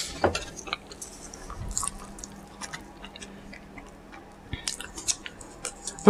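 A person chewing a mouthful of chicken quesadilla, with faint, scattered wet mouth clicks.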